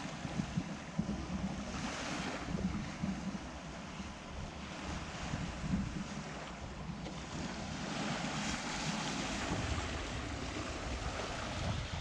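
Waves washing onto a sandy shore, with wind buffeting the microphone; the hiss of the surf swells about two seconds in and again around eight to nine seconds.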